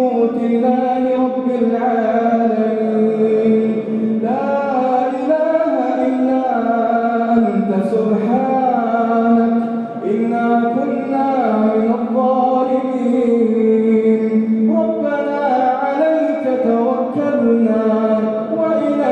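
A man's voice chanting melodically with long held notes that slide slowly between pitches, without pauses.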